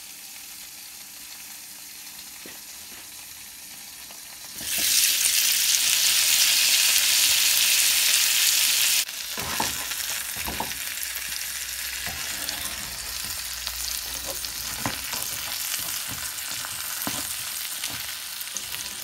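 Pan-fried pork buns (sheng jian bao) sizzling in oil in a hot frying pan once their steaming water has cooked off, the bottoms crisping. The sizzling grows much louder about five seconds in for some four seconds, then stops short back to a steady sizzle, with scattered taps and scrapes of a slotted turner against the pan as the buns are lifted.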